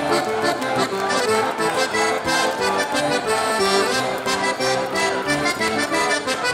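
Live folk-metal band playing an instrumental passage, a quick folk tune carried by accordion over the band.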